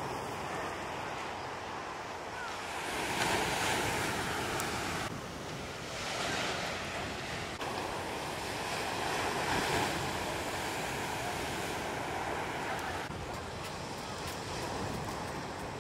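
Heavy shorebreak waves breaking and washing up the beach, a continuous rush of surf that swells louder about three seconds in and again about ten seconds in.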